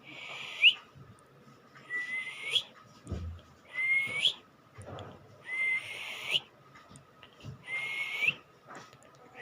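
A child's ventilator-assisted breathing: five breaths about two seconds apart, each a hiss that ends in a short rising whistle.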